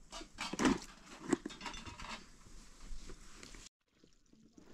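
Rustling, scraping and a few sharp knocks as a cloth bag is handled and turned over; the sound cuts off abruptly about three and a half seconds in, and only faint scrapes follow.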